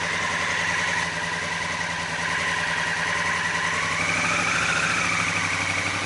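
Honda Africa Twin's parallel-twin engine running at low revs as the motorcycle rolls slowly, with a steady high whine above it that rises slightly about four seconds in.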